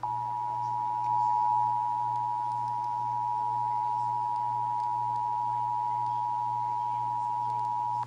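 Emergency Alert System attention signal: the steady two-tone alert (about 853 and 960 Hz sounded together) of a Required Monthly Test, held unchanged for eight seconds and cutting off abruptly. It plays out of a radio over a steady low hum.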